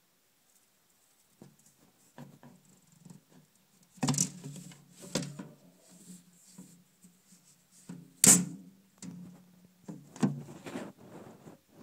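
Knocks and rattles of a terrarium's wire-mesh screen lid being handled and opened, a handful of sharp knocks with softer clatter between them, the loudest about eight seconds in, over a faint low hum.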